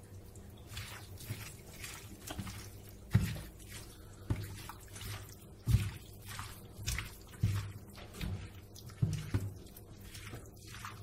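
A hand mixing diced potatoes, tomatoes, onions and chicken in a wet tomato-paste and yogurt sauce on a metal oven tray: squelching and scraping, with irregular knocks of food against the tray.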